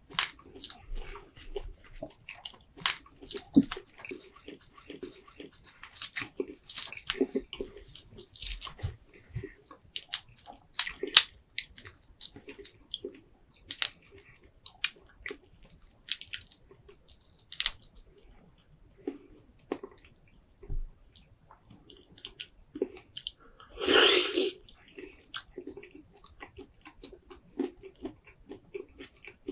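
Close-miked wet chewing and smacking of seafood boil, sticky with sauce, with sharp crunches and clicks from biting into it. One louder, longer wet burst comes about three-quarters of the way through.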